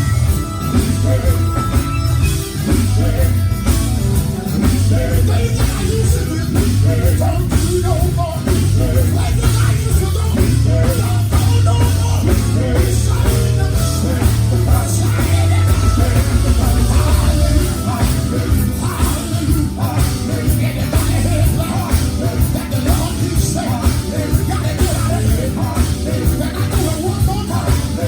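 Live gospel quartet music played loud: a band with heavy bass and drums under group singing.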